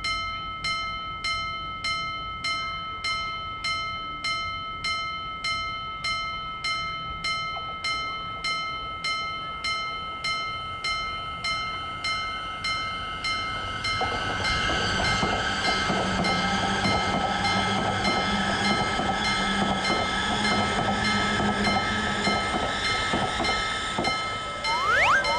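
Japanese level-crossing warning bell dinging in an even repeating rhythm. About halfway through, a train passes and its rushing rail noise builds over the bell. Near the end, a few quick rising chime sounds come in.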